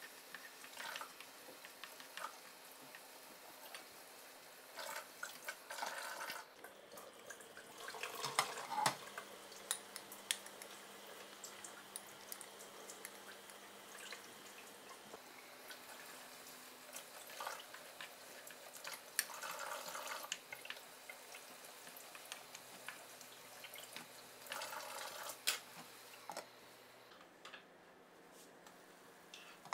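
A wooden spoon stirring peppers, olives and tomatoes as they simmer in a watery sauce in a non-stick frying pan. The stirring comes in several short scraping bouts, with scattered small clicks and ticks between them.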